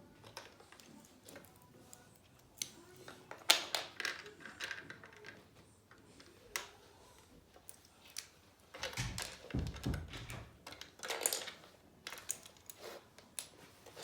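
Plastic Lego bricks clicking and clattering as small pieces are handled and pressed together, in irregular clicks with a sharper one about three and a half seconds in. A low bump comes around nine to ten seconds in.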